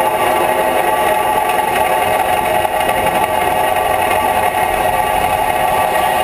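Steady, loud vibration carried up the trolley pole of a running Sydney R-class electric tram to a pole-mounted camera, heard as a dense unbroken hum with a strong mid-pitched band, mixed with wind.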